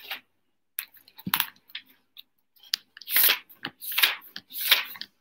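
Rummaging on a desk: paper being handled, with a few small clicks, then from about three seconds in a run of scratchy rustles about two-thirds of a second apart.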